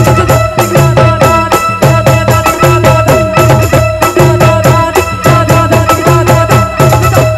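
Live Rajasthani devotional folk band playing an instrumental interlude: a fast, driving drum rhythm with jingling percussion under a held melodic tone.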